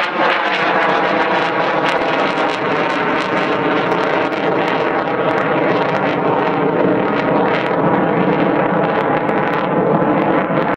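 Eurofighter Typhoon jet flying past: loud, steady jet engine noise from its twin EJ200 turbofans, with the pitch dropping in the first moment as the jet goes by.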